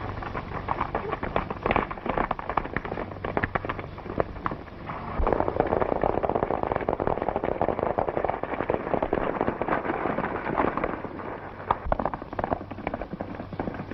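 Hooves of several horses galloping on dirt: a dense, rapid pounding that grows louder about five seconds in.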